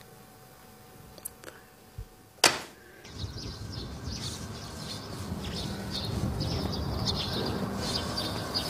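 A few soft clicks and a sharp knock about two and a half seconds in. Then outdoor ambience: many birds chirping over a steady low rumble.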